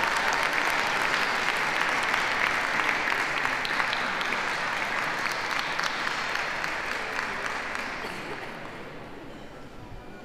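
Audience applauding, a dense patter of hand claps that dies away over the last two or three seconds.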